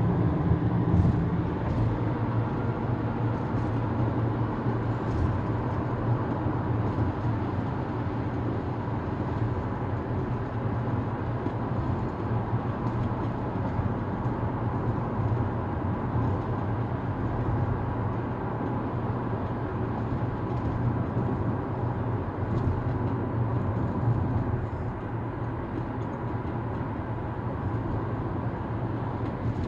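Steady running noise of a vehicle in motion: a continuous low drone with an even hiss above it.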